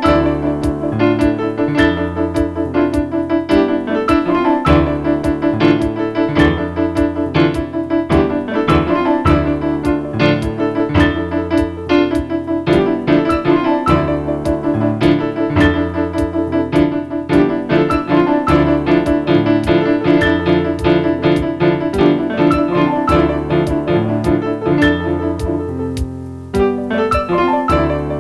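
Instrumental piano music: rapid, evenly repeated notes over a sustained bass line, with a brief drop in loudness near the end.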